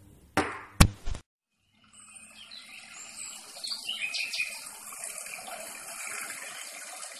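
Three short, loud knocks about a second apart, then a moment of silence, then running water with a steady rushing sound and a few high chirps over it.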